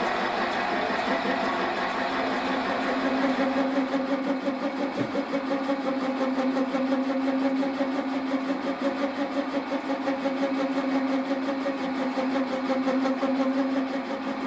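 Metal lathe running at 300 rpm with the carriage on fine power feed, a boring bar turning between centres and cutting the bore of a small engine cylinder. A steady mechanical hum with two held tones under a rough cutting noise.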